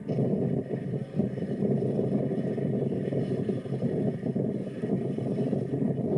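Dirt bike engine running steadily, a rough, muffled motor sound that comes in suddenly and then holds its level.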